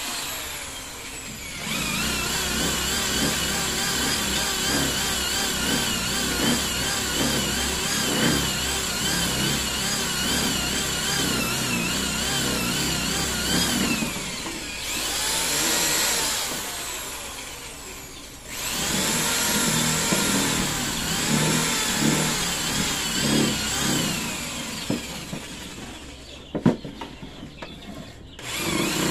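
Handheld corded electric drill running and boring into a thin wooden strip on a plank, its motor whine wavering as the bit cuts. It stops for a moment about two-thirds of the way through, starts again, and winds down near the end.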